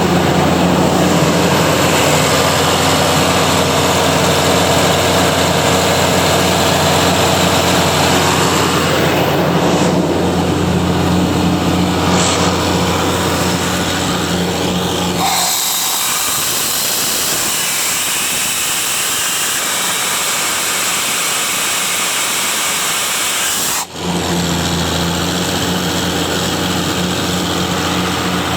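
Ingersoll Rand 750 air compressor running steadily with a constant engine hum. About halfway through, a loud even rush of air-like hiss takes over and the low hum drops away. After a short break near the end, the steady engine hum returns.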